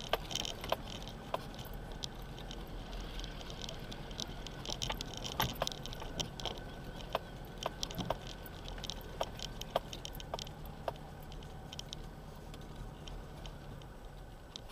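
4x4 driving slowly over a rough gravel track: a low, steady engine drone with frequent rattles and knocks from the bumpy ride.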